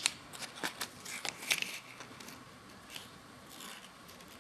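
Irregular crackling and crinkling as the wet cleaning-wipe sachet from a screen-protector kit is torn open and handled, busiest in the first two seconds and again near the end.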